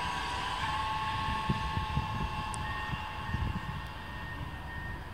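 DB Class 442 Talent 2 electric multiple unit pulling away, its drive giving a steady electric whine that fades as the train draws off, over an irregular low rumble.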